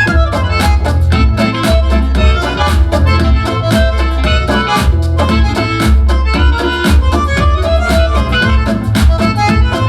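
Music played through a TCL S642W 2.1 soundbar and its subwoofer, picked up by a microphone in the room: a heavy, pulsing bass line under a steady drum beat and a melodic lead instrument.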